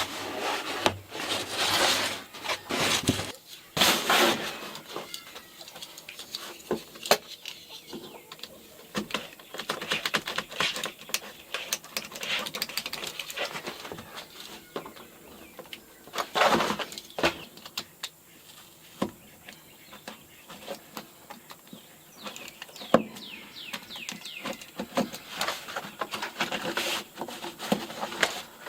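Irregular scraping, rubbing and knocking of hand work, in bursts that come and go, loudest near the start and again about halfway through.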